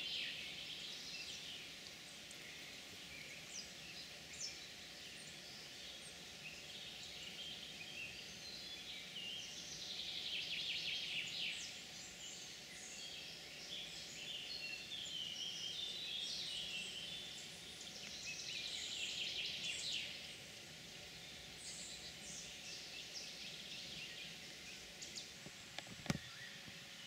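Outdoor woodland ambience with songbirds singing: high chirping song phrases of about two seconds recur every eight or nine seconds, with scattered single chirps between, over a faint steady hum. A single sharp click sounds near the end.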